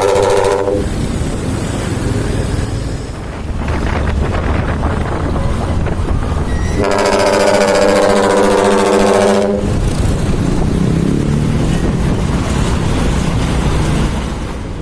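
Dump truck's ship-style air horn ('terompet kapal') blowing one long blast of about three seconds, several deep tones sounding together, with the tail of another blast ending about a second in. A heavy truck engine runs between the blasts.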